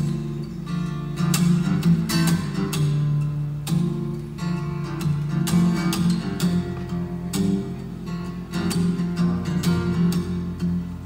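Acoustic guitar strumming chords as a song's introduction, before the singing comes in.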